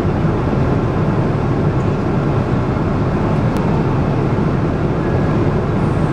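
Jet airliner cabin noise in flight: a steady, even roar of engines and rushing air, heaviest in the low end.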